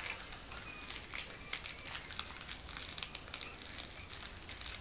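Tibetan Terrier puppy chewing a soft fabric toy, making irregular crinkling and crackling.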